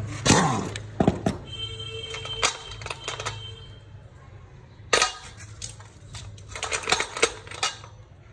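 Metal hand tools clinking and clanking against a flywheel puller fitted on a motorcycle engine's rotor, in irregular clusters with a brief metallic ringing about two seconds in. A steady low hum runs underneath.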